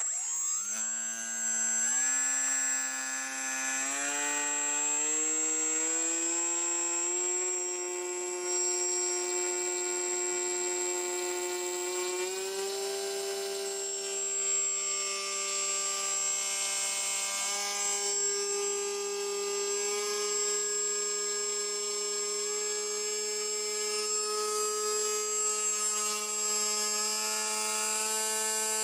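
Electric brushless motor and propeller of an AeroScout S2 RC plane throttled up from rest: the whine climbs in pitch in several steps over the first few seconds, steps up once more about twelve seconds in, then runs steady at high throttle. A thin high tone sits steadily above it.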